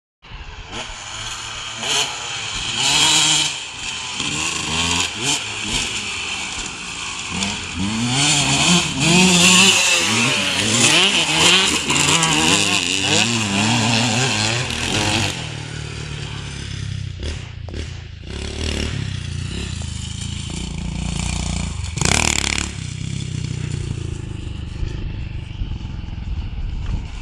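Motocross dirt bike engines revving as the bikes ride the track, the pitch rising and falling over and over as they accelerate and shift, loudest in the middle and settling to a fainter drone later.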